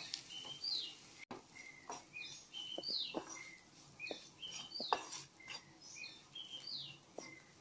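A wooden spatula stirring and scraping sliced shallots and spice powders around a nonstick kadai, with short knocks against the pan. Over it, a bird in the background repeats a short high whistled phrase every couple of seconds.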